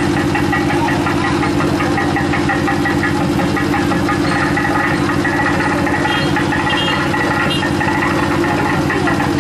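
An engine running steadily at an even speed: a constant low hum with a fast, regular pulse.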